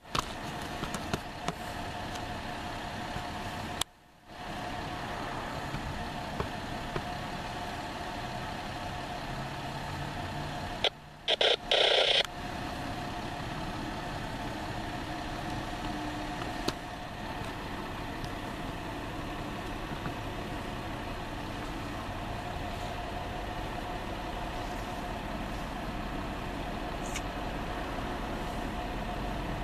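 A steady engine hum with a steady mid-pitched tone running through it, briefly broken by a short louder noise about eleven seconds in.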